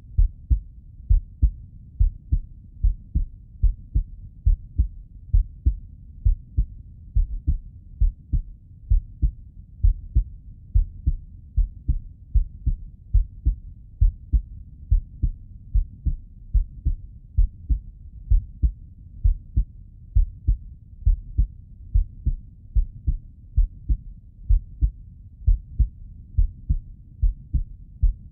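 A man's heartbeat heard through a stethoscope bell: a steady, even rhythm of low, muffled thumps.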